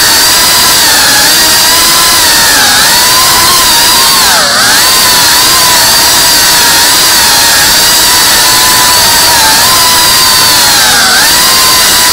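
Tiny whoop FPV drone's motors and propellers whining steadily at high pitch. The pitch dips briefly a few times as the motors slow, most deeply about four and a half seconds in and again near the end.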